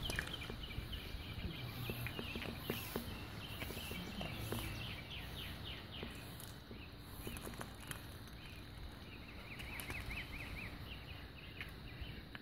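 Quiet outdoor ambience with small birds chirping faintly and repeatedly, including a quick twittering run about three-quarters of the way through.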